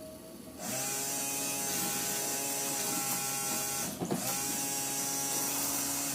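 Porsche 928 windshield washer pump motor running with a steady whine. It switches on about half a second in, cuts out briefly around four seconds and runs again. This is the reconditioned pump working.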